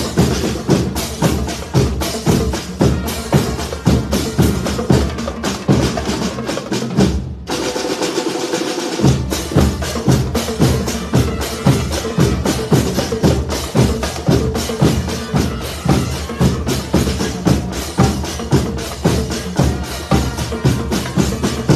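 A marching band's percussion section playing a fast, steady beat on drums and crash cymbals, with brass playing over it. About seven seconds in the cymbals stop for a moment and the bass drums drop out for about a second and a half, then the full beat resumes.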